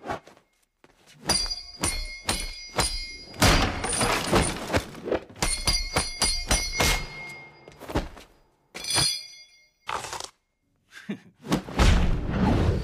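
Film fight sound effects: flurries of punches, blocks and body blows, several quick strikes in a row with short pauses between. Some hits clang and ring on like metal, the sound of the iron rings worn on the fighter's forearms, and a heavier run of blows comes near the end.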